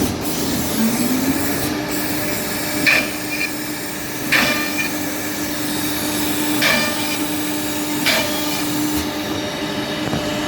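CK3000 horizontal CNC drilling machine running. A steady motor whine rises in pitch about a second in and then holds, and four sharp mechanical clacks fall over the next several seconds.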